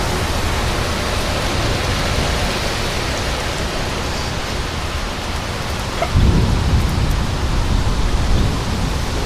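Heavy rain and strong wind of a severe thunderstorm, a steady rushing hiss, with a sudden deep rumble about six seconds in.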